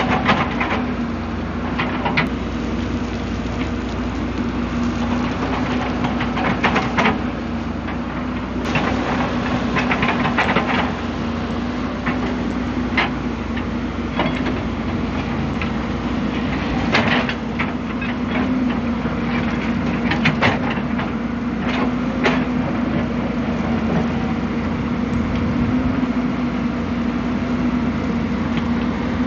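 Hyundai 190W-9 wheeled excavator's diesel engine running steadily at working speed, with scattered scrapes and knocks of the bucket working the soil.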